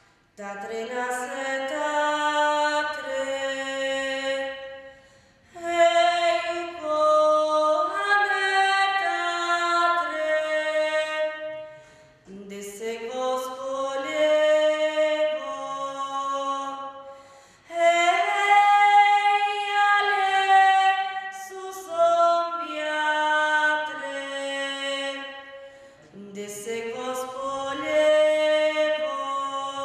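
Background vocal music: voices singing long, held phrases with slow slides in pitch, separated by brief breaks.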